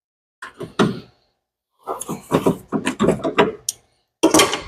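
A series of knocks and clunks from parts and tools being handled, in three groups, the loudest near the end.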